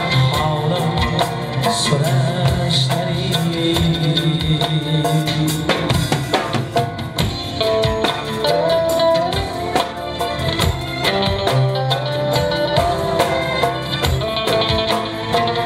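Live band playing an instrumental passage of an Uzbek pop song: drum kit and a goblet drum keep a dense beat under a keyboard synthesizer melody.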